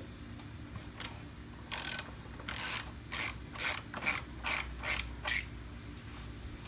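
Ratchet wrench clicking through about eight short strokes, speeding up to roughly two a second, as it works a nut loose on a go-kart's rear wheel.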